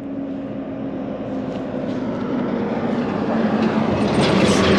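Truck engine and road noise growing louder as the truck draws up and slows to stop, the engine note dropping slightly. A short hiss comes near the end.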